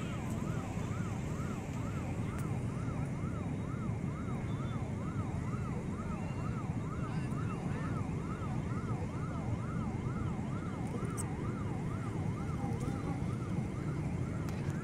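Railway level-crossing warning alarm sounding an electronic warbling tone that rises and falls about twice a second, over a steady low rumble of waiting traffic.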